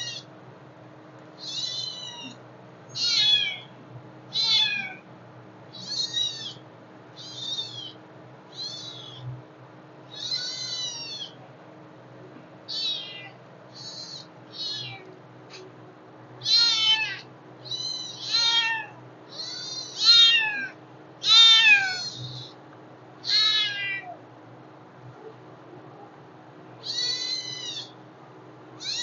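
A hungry kitten meowing over and over: about twenty short, high-pitched meows, each falling in pitch, in uneven runs with a few pauses of a second or two. The loudest meows come a little past the middle.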